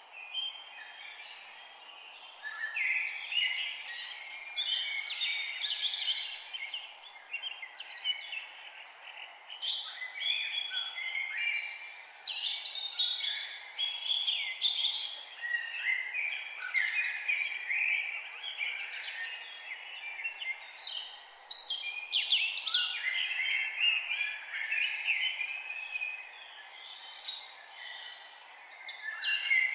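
A chorus of many birds singing at once: dense, overlapping chirps, trills and quick downward-sweeping calls that never let up, over a faint steady background hiss.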